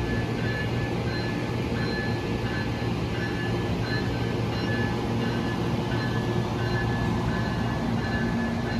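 Amtrak passenger train of Amfleet coaches rolling slowly past at close range: a steady low hum and rumble, with a high tone that keeps cutting in and out.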